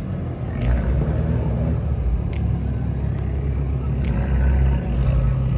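Abarth 595 hatchbacks with 1.4-litre turbocharged four-cylinder engines driving slowly past one after another, a steady low engine rumble. A few sharp ticks sound through it.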